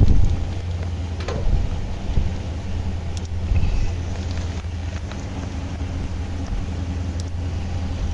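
A car engine idling steadily, with a few short clicks and knocks over it.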